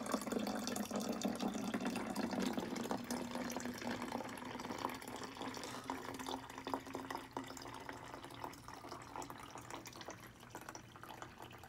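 Water poured in a thin stream from a plastic pitcher into a plastic bottle, trickling and splashing into the water already inside. It grows gradually quieter toward the end.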